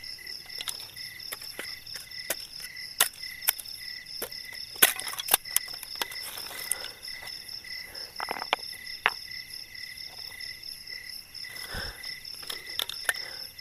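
Crickets chirping steadily in a fast pulsing trill at two pitches, with frequent sharp snaps and clicks of dry twigs being broken and handled for a campfire.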